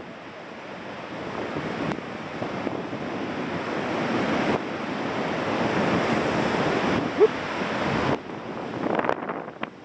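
Mediterranean surf rushing in, swelling steadily for about eight seconds and then dropping away, with strong wind buffeting the microphone. A brief rising squeak cuts through about seven seconds in.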